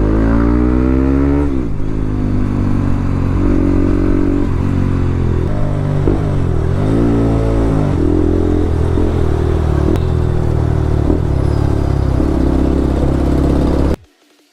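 Bajaj Pulsar RS200's single-cylinder engine running through an aftermarket Akrapovic R1M full-system exhaust, loud, rising and falling in pitch several times as the bike accelerates and eases off. The sound cuts off abruptly near the end.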